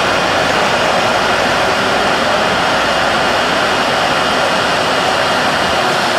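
McDonnell Douglas MD-11 freighter's three jet engines running steadily on the runway: an even rushing noise with a faint high whine, unchanging in level.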